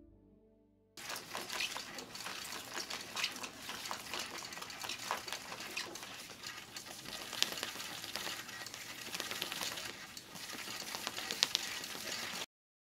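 Tach-It label rewinders winding a strip of paper labels: a steady crackling, rustling paper noise with scattered small ticks. It starts about a second in and cuts off suddenly near the end.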